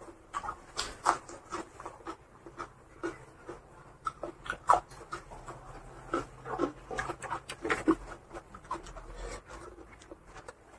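Close-miked eating by hand: mouth-chewing and lip smacks making irregular wet clicks, several a second, along with fingers squishing rice and curry on the tray.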